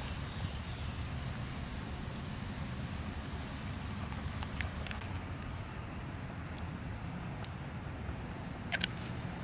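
A wooden spoon stirring a thick milk sauce in a metal pan over campfire embers, with scattered light clicks and a pair of sharp clicks near the end, over a steady low rumble.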